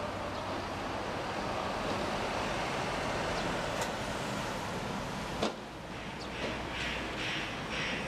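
Steady road-traffic noise, with a single sharp click about five and a half seconds in.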